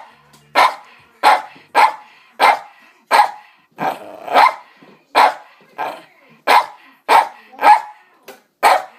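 Pet dog barking over and over in a steady rhythm, about one and a half sharp barks a second.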